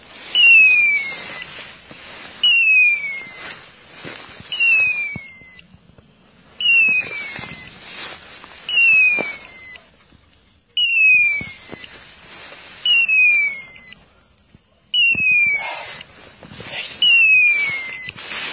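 Hunting-dog beeper collar on an English setter sounding a falling, whistle-like electronic tone about every two seconds, each tone just under a second long, over rustling in tall grass.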